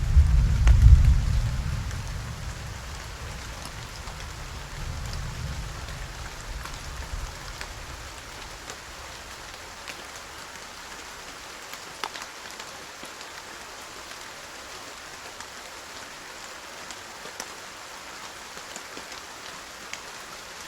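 Steady rain with occasional sharp drop hits. A low thunder rumble at the start dies away over the first several seconds.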